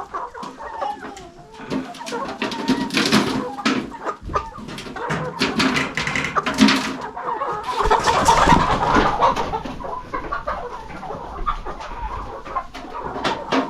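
Chickens clucking, with many short calls throughout and a busier, louder run of calls a little past the middle.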